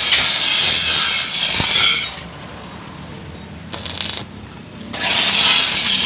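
Electric arc welding: the arc crackles and hisses in bursts, with a long burst, a brief one in the middle, and another near the end as the arc is struck and broken.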